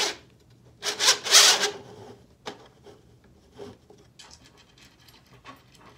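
Metal threaded rod sliding through the holes of a row of 3D-printed plastic frames, its threads rasping against the plastic in a loud scrape about a second in, followed by a single click and faint handling noises.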